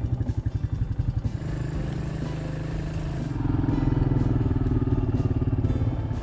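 A small motor vehicle's engine runs at low speed with a choppy throb. About three and a half seconds in it grows louder and rises in pitch as the vehicle pulls away.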